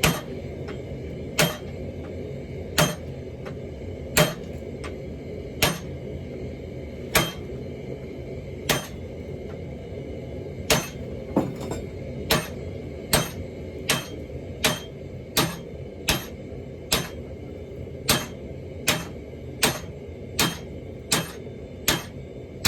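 Hand hammer striking steel on an anvil while forging a ball, each blow sharp and ringing. The first few strikes come about one every second and a half, and from about halfway they speed up to more than one a second. A steady low hum runs underneath.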